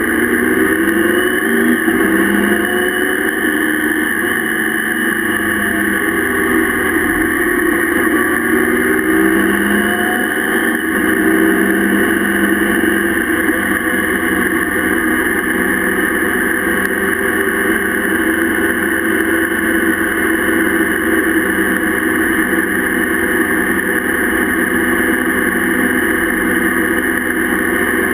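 Motorcycle engine running at road speed, heard over steady wind and road noise from a camera mounted on the bike. The engine pitch rises and falls for the first ten seconds or so, then holds steady.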